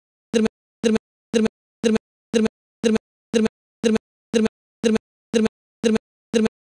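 Audio dropout glitch: one short, identical fragment of sound repeating about twice a second, with dead silence between the pulses, in place of the ongoing speech.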